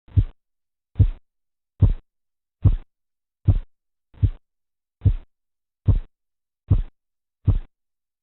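Korotkoff sounds heard through a stethoscope over the arm under a blood-pressure cuff: ten short, dull thumps of the pulse, evenly spaced at about 72 a minute, starting abruptly out of silence.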